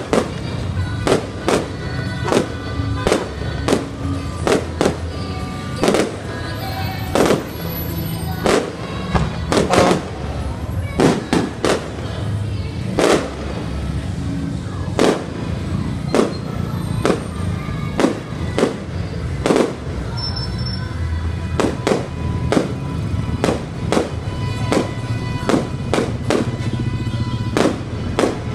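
Aerial fireworks shells bursting in quick succession, sharp bangs roughly one or two a second, over music playing with sustained notes.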